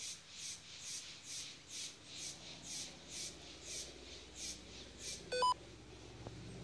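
A high-pitched pulsing, evenly spaced about twice a second, stops about five seconds in and is followed by a short electronic beep; a low steady hum comes up near the end.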